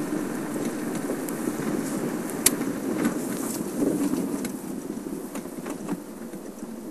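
Open safari vehicle driving along a dirt track: a steady engine and road rumble with a sharp click about two and a half seconds in. The rumble gets quieter in the second half.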